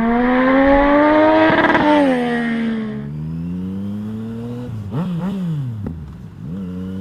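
Motorcycle engine accelerating hard, its revs climbing for about two seconds, then dropping and rising again through gear changes, with a quick up-and-down rev wobble about five seconds in, before it settles to a steady pitch.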